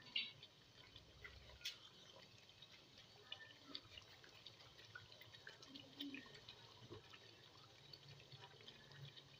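Chicken achar gosht gravy simmering in a pot, with faint, irregular pops and ticks of bubbles breaking at the surface.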